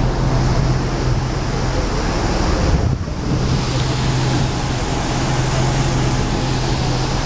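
Motor launch under way: a steady engine drone under wind buffeting the microphone and water rushing past the hull, dipping briefly about three seconds in.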